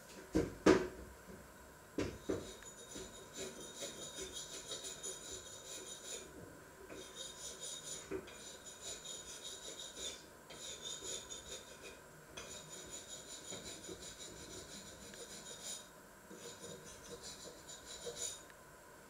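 Rapid rubbing or scraping strokes in bursts a few seconds long, separated by short pauses, after a couple of sharp knocks near the start.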